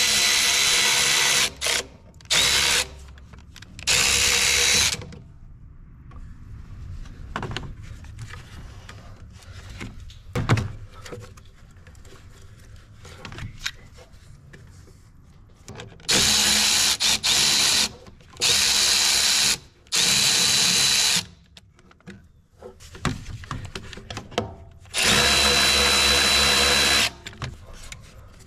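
Cordless electric ratchet with an 8 mm short socket spinning in repeated bursts of one to two seconds, with a steady high motor whine, backing out the clamp screws on the intake air tubing. Small clicks and knocks of hands working the tubing fill the gaps between bursts.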